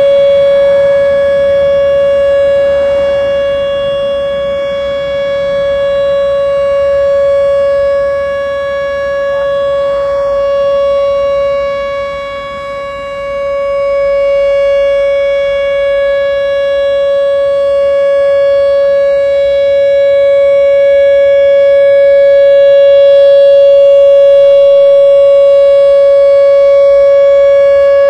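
Outdoor tornado warning siren giving its steady alert wail on one unchanging pitch. The loudness slowly swells and fades, dipping about twelve seconds in and then building again.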